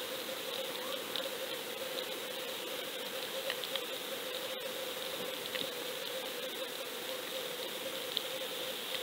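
Underwater audio from an action camera sunk on a fishing line: a steady hiss with a constant hum, dotted with faint scattered clicks and one sharper click about halfway through.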